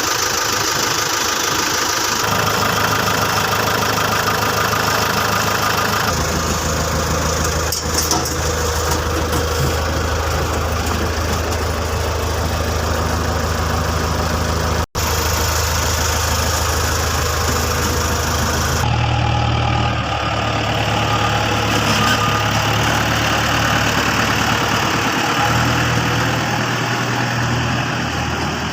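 JCB 3DX backhoe loader's diesel engine running steadily, its note changing a few times, with a brief dropout about halfway through.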